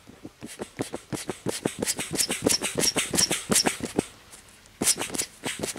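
Bellows foot pump inflating an air mattress, worked fast in a quick run of puffs of air with small squeaks; it stops about four seconds in and starts again near the end.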